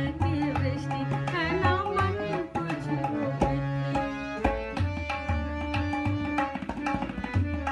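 Instrumental music of a Hindi song: tabla playing a steady rhythm under a melody, which wavers for the first couple of seconds and then moves into held notes.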